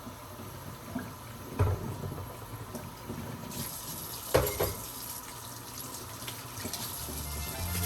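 Tap water running into a sink, the flow getting stronger about halfway through, with a couple of short knocks.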